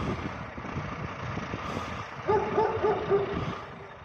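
Wind rumbling and buffeting across the microphone, with a dog barking four times in quick succession just past halfway.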